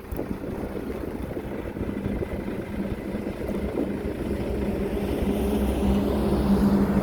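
Heavy diesel engine of an earthmoving machine running steadily, with a low hum that grows louder over the last couple of seconds.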